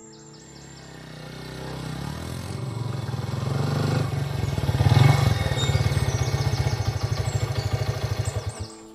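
A motorcycle engine rides up, growing louder over the first few seconds. It then idles with an even pulsing beat and is switched off, cutting out suddenly near the end.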